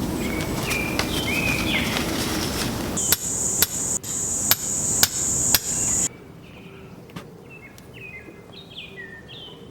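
Six sharp knocks about half a second apart, over a steady high buzz of insects. Just after the middle the sound cuts abruptly to quieter forest ambience with birds chirping; birds also chirp over the noisy ambience at the start.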